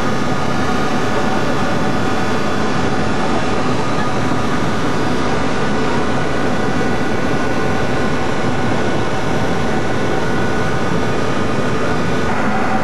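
Ferry's engines and machinery running steadily, heard on board: a loud, unchanging drone with several held tones over it.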